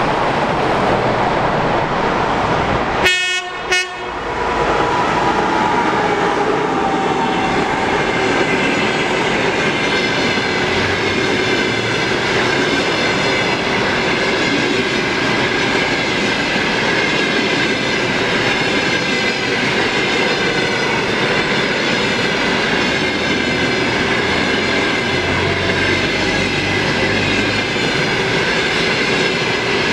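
EP2K electric locomotive's horn sounding near the start, cut short about three seconds in; then a long train of passenger coaches rolling past at speed, a steady rumble with wheels clattering over the rail joints.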